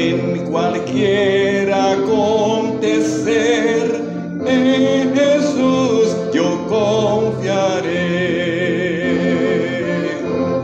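Hymn music: sung notes held with vibrato over instrumental accompaniment.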